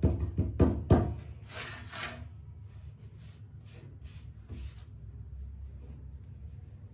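Hands rubbing and pressing a pasted paper sheet flat onto a kite on a wooden table: a run of short swishing strokes, louder for the first two seconds, then softer and lighter.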